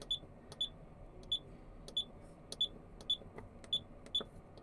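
Key beeps from a Komatsu PC400LC-7 excavator's monitor panel as its buttons are pressed to set up the monitoring screen: a string of short high beeps, each with a faint click, about one to two a second.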